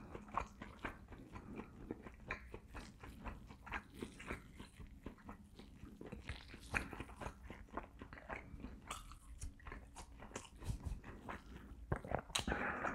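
A person chewing a mouthful of rotisserie chicken close to a clip-on microphone: a steady run of faint, quick wet clicks and small crunches, a little louder near the end.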